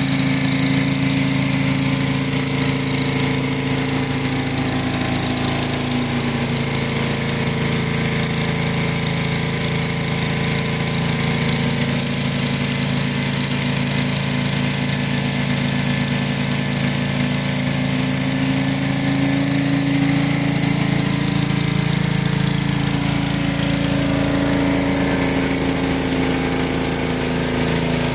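Gas-engine pressure washer running steadily under load, with the hiss of water jetting from a rotary surface cleaner as it is pushed across concrete.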